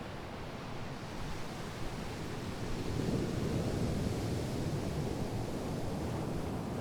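Sea waves washing on the shore in a continuous rush, a wave swelling louder about three seconds in.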